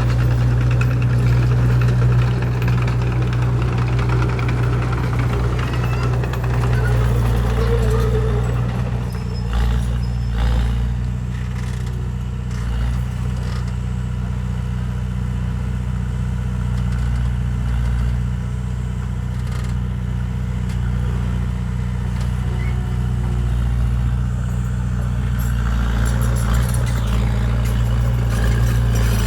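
Heavy diesel engine of earthmoving machinery running steadily with a deep, even hum, and a few short knocks about ten seconds in.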